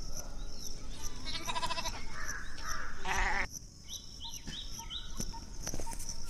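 An animal calls twice with a wavering cry, about a second and a half in and again about three seconds in, followed by four short falling bird chirps.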